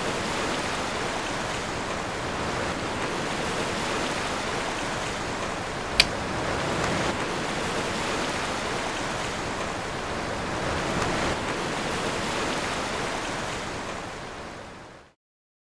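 Steady rushing wash of ocean surf. A single sharp click cuts through it about six seconds in, and the surf fades out near the end.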